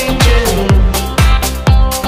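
Background dance music with a steady beat, about two beats a second.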